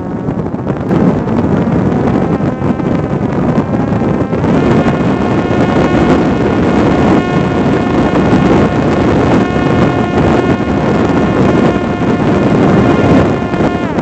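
Parrot Disco drone's electric motor and propeller whining, heard over heavy wind noise on the onboard microphone. The whine rises in pitch during the first few seconds, holds steady while the plane climbs, and drops away near the end.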